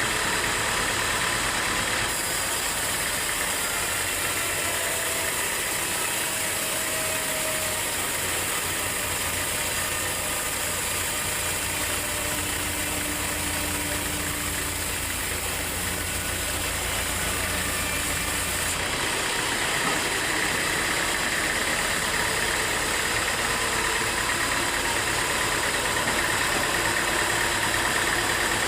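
Engine-driven sawmill machinery running steadily. The sound changes a couple of seconds in and again about two-thirds of the way through, as a higher band of saw noise drops away and later returns.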